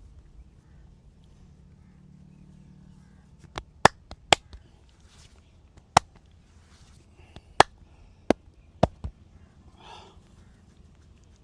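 Sharp, loud smacks from a masseur's hands during a head, back and neck massage: about eight separate strikes between three and a half and nine seconds in, some in quick pairs, with faint rustling between them.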